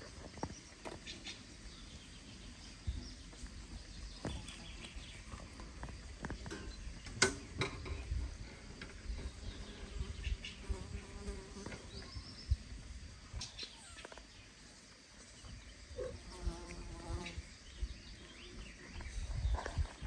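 A flying insect buzzing faintly on and off, among scattered light clicks and rustles.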